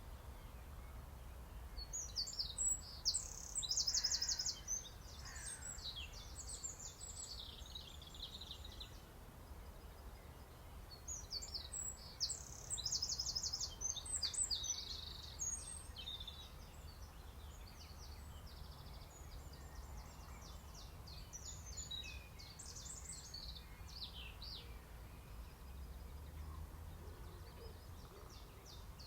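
Songbird singing: two loud phrases of fast, high trilled notes about ten seconds apart, then fainter song, over a steady low rumble.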